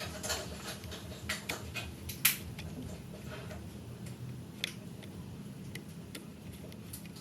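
Irregular light clicks and taps, with a sharp louder snap about two seconds in and another a little after four and a half seconds, over a low steady hum.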